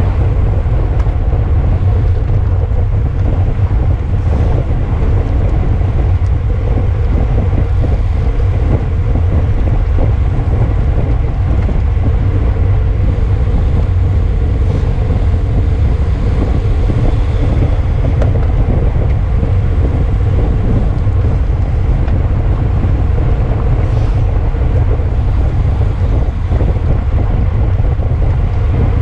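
Loud, steady wind buffeting a camera's microphone on a road bicycle moving at race speed.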